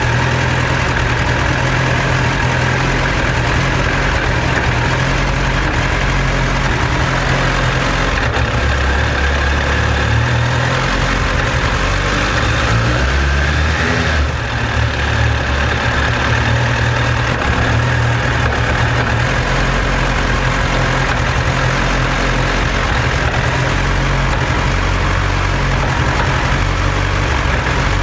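Suzuki Bandit 1200 S's air/oil-cooled inline-four idling while still cold, with a rattling from the engine that the owner fears is a sign of damage.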